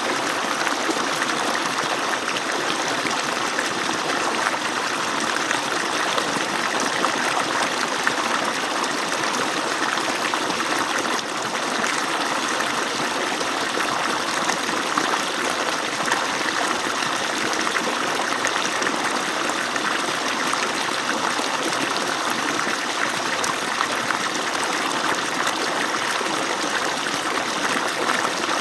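Water pouring from an agricultural pump's outlet pipe, a steady rush of falling, splashing water.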